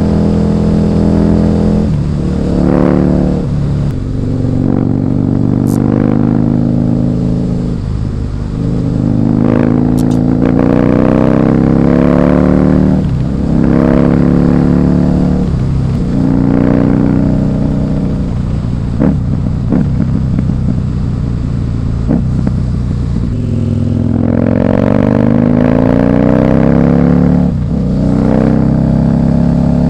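Husqvarna Nuda 900R's parallel-twin engine pulling hard through the gears, its pitch climbing and then dropping back at each upshift, several times over.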